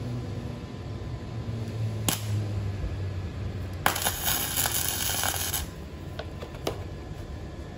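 Welding arc crackling for just under two seconds, about four seconds in, after a sharp click: a short weld fixing a nut onto a Honda Ape 50's snapped muffler stud bolt so the stud can be turned out.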